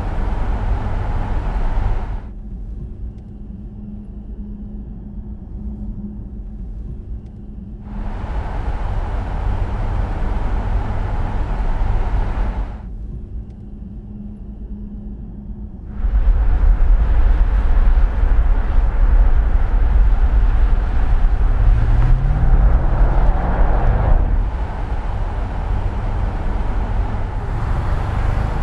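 A car driving: steady engine hum with road and tyre noise. The sound switches abruptly between a full, bright version and a dull, muffled one twice, then grows louder with a strong low rumble past the middle. Later the engine note rises as the car accelerates and then falls back.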